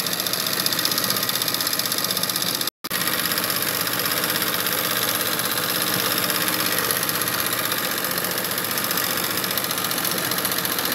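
Sewing machine doing embroidery, running steadily at speed with the needle going up and down in a fast, even chatter as it stitches red thread into cotton saree fabric. The sound cuts out for an instant about a third of the way in.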